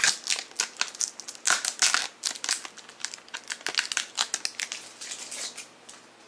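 Adhesive sticker being peeled off the top edge of a plastic Blu-ray case: a dense run of crackles and crinkles, loudest in the first two seconds and thinning out toward the end.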